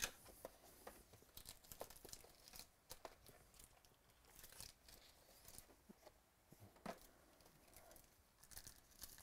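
A trading-card hobby box being opened and its contents handled: a sharp click at the start, then faint scattered taps, rustling and crinkling of cardboard and plastic wrapping.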